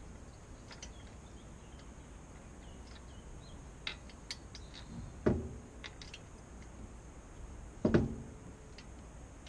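Hands-on work fitting a car wheel: scattered small metallic clicks and clinks, with two heavy clunks a little over five and about eight seconds in.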